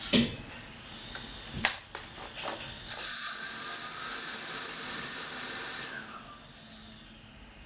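A few light clicks, then the six brushless motors of a DJI F550 hexacopter spin up on the bench and run steadily for about three seconds with a loud, high-pitched whine, cutting off abruptly as the motors are stopped.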